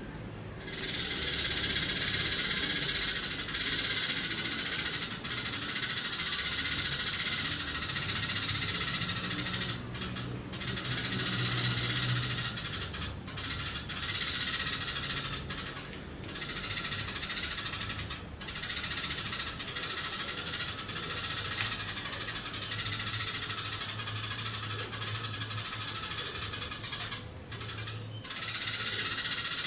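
Eurasian tree sparrow chattering in long, rapid runs of high chirps, broken only by a few short pauses.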